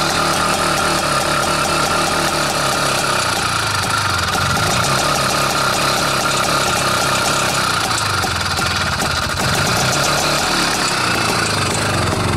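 IZh Planeta motorcycle's single-cylinder two-stroke engine running steadily just after a cold start in frost, choke fully off and throttle held slightly open; its note wavers a little about two-thirds of the way through. The owner says this is how a normal Planeta should run.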